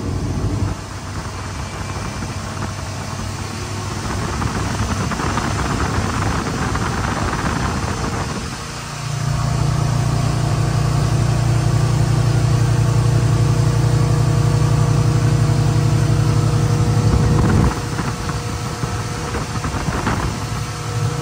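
Motorboat engine running under way, with wind and water rushing. About nine seconds in the engine note gets louder and holds steady, then drops back suddenly about eight seconds later.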